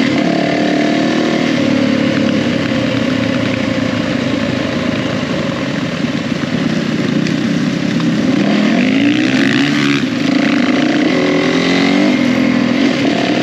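2020 Yamaha WR450F's single-cylinder four-stroke engine running under way on a dirt trail, heard from the rider's seat over a steady rush of noise. It runs steadily at first, then revs up and down several times in the second half.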